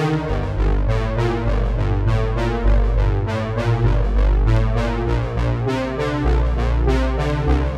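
Background music: an instrumental stretch of a rap song, with synthesizer and electric-piano chords over a heavy bass and a steady drum beat.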